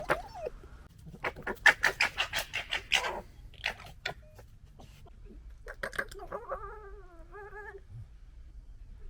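Red foxes gekkering: a burst of fast, harsh chattering about a second in that lasts about two seconds, a few more sharp calls, then a wavering whine. It is the sound of foxes squabbling.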